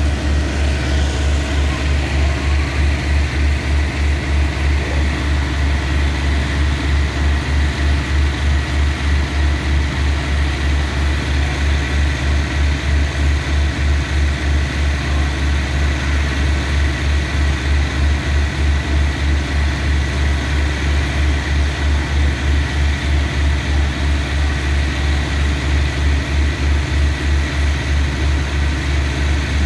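Diesel engine of a stationary passenger train idling, a steady low throb that pulses evenly about three times a second.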